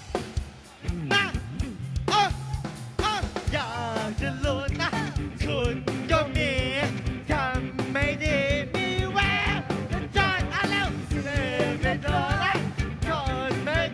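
Live rock band playing, a male singer singing into a microphone over drums and electric guitar, with a short break in the music about half a second in.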